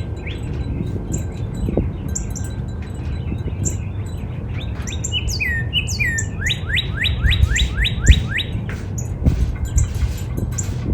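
Northern cardinal singing. A few down-slurred whistles come about five seconds in, then a quick run of about eight repeated slurred notes. High, thin chirps of other birds run throughout, over a steady low rumble.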